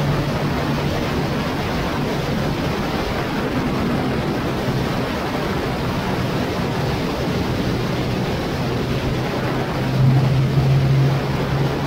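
Motorcycle engine running steadily at cruising speed under heavy wind rush on the microphone. The engine note gets louder for about a second near the end.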